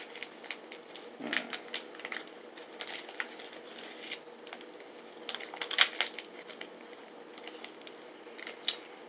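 Plastic wrapper of a meat snack stick crinkling and crackling in the hands as it is opened, in scattered bursts with a louder cluster about five to six seconds in.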